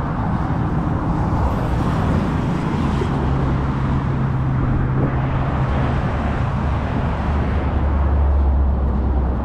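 Road traffic noise: a steady rush of passing vehicles with a low engine hum, one vehicle's hum growing louder near the end.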